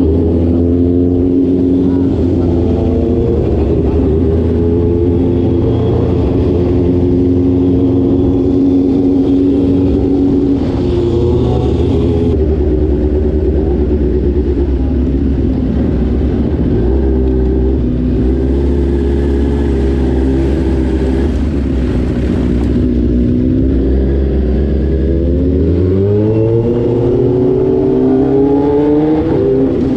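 Motorcycle engine running at steady cruising revs, then rising in pitch as the rider accelerates near the end.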